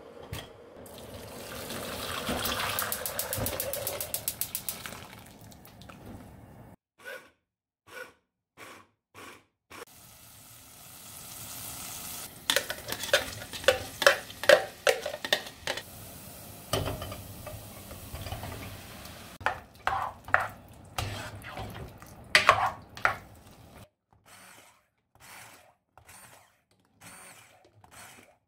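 A run of kitchen prep sounds: a knife cutting through tomatoes on a wooden chopping board, then chopped onion tipped and tapped out of a plastic chopper bowl into a ceramic pot, with many short knocks and clinks.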